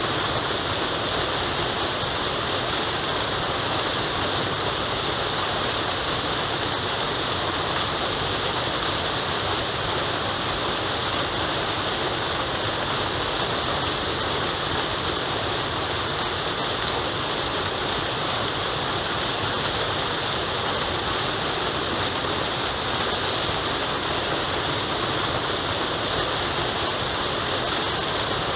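Waterfall rushing steadily: an even, unbroken roar of falling and tumbling water.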